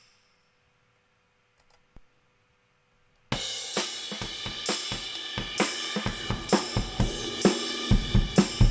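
Recorded drum kit loop, cymbals, hi-hat, snare and kick, played through an analogue saturation circuit. It drops out for about three seconds, then comes back in, with the kick drum hitting harder near the end.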